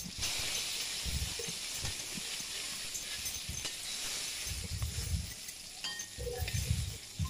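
Fish pieces frying in a little oil in a steel karai, a steady sizzle as a spatula lifts them out. A few low dull thuds come through about a second in and again near the end.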